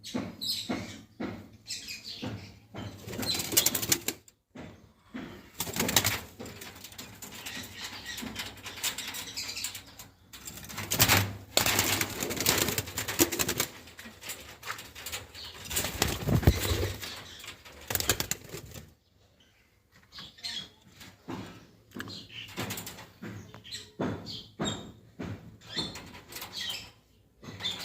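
A pair of Fischer's lovebirds chirping, with irregular bursts of wing flapping and fluttering, and a short lull about two-thirds of the way through.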